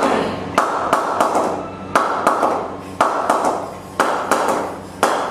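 Wooden mallet striking the face of a new willow cricket bat again and again, about three sharp knocks a second, each ringing briefly: the bat being knocked in.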